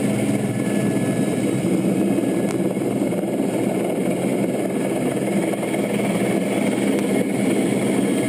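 Steady drone of a helicopter's engine and rotor, an even low hum with a constant tone and no let-up.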